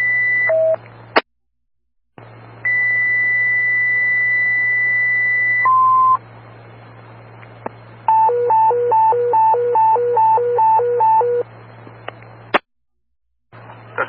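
Fire dispatch paging tones over a scanner radio channel: a short high tone drops to a lower one, the channel cuts out for about a second, then a long steady high tone of about three seconds is followed by a short lower tone. About eight seconds in, a high-low alert tone alternates about three times a second for some three seconds, before the channel cuts out again with a click; radio hiss and hum run underneath.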